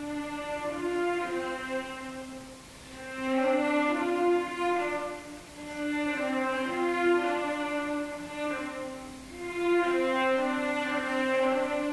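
Cello and string quartet, bowed, playing a slow passage of long held notes in the low-middle register. The phrases swell and fade every few seconds.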